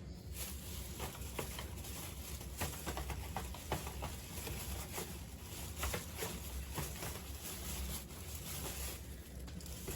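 Packaging rustling and crinkling, with many small irregular clicks and taps, as boxed diecast cars are handled and dug out of a box.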